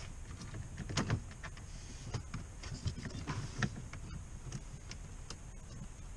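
Scattered light clicks and knocks of screws and a metal switch panel being handled and fitted into a car dashboard, a few louder knocks about a second in and near the middle.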